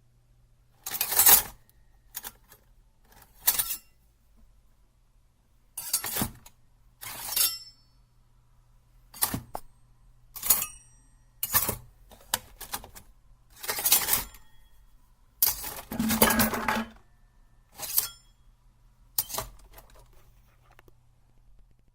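A knife's metal blade handled in a series of about a dozen separate clinks and scrapes, a few with a brief high metallic ring, the longest scrape about two-thirds of the way through. A faint steady low hum runs underneath.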